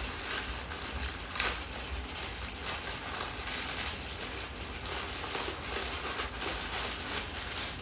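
Plastic mailer bag crinkling and rustling as it is torn open and handled, with scattered sharper rustles.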